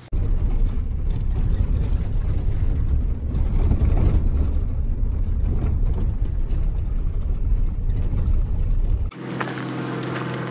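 Cabin noise inside a moving shuttle van: a loud, steady low rumble of engine and road with occasional jolts. About nine seconds in it cuts off abruptly to a quieter, steady hum.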